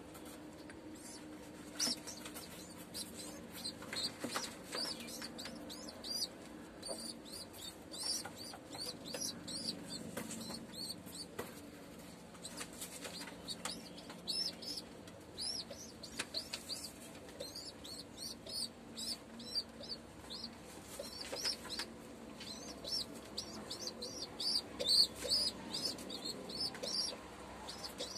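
Homing pigeon squab squeaking over and over in short, high-pitched chirps as it begs and is fed beak-to-beak by its parent, with some wing flutters. The squeaks come faster and louder in the second half.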